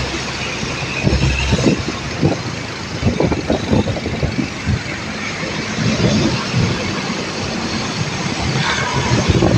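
Road vehicle noise: traffic running along a road, with irregular low rumbles and thumps.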